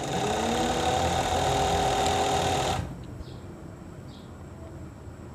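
Industrial overlock (pico) machine sewing a test edge on fabric: it winds up to speed, runs steadily at high speed and stops about three seconds in. This is a trial run to check newly adjusted thread tensions (one thread loosened, another tightened) for a frill pico stitch.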